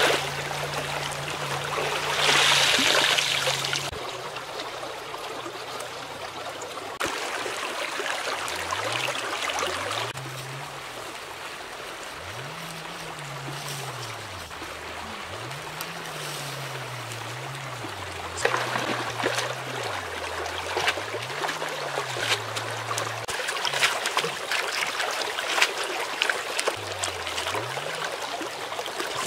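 Shallow stream running over stones, with a louder rush of splashing about two seconds in and scattered small splashes in the last third as things are rinsed in the water.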